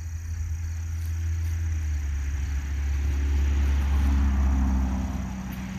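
A car going by, swelling to its loudest about three to four seconds in and then fading, over a steady low rumble.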